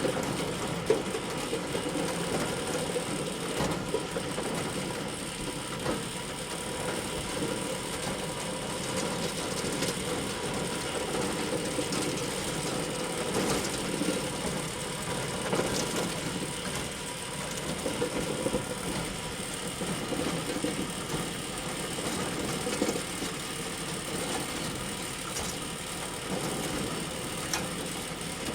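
Glitch sound effect: a continuous stream of electronic interference noise, like a malfunctioning radio or broken signal, with faint steady tones underneath and a short sharp crack about a second in.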